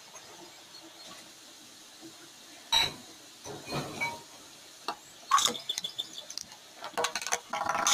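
Hands and a plastic rolling pin knocking and tapping on a glass tabletop while play dough is rolled. There are a few sharp knocks, the loudest about three seconds in and more near the end, with quiet stretches between.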